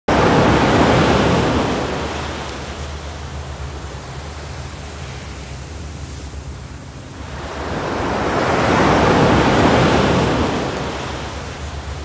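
Pacific Ocean waves breaking and surf washing up a sand beach. One wave crashes right at the start and then recedes. Another builds and breaks about eight seconds in.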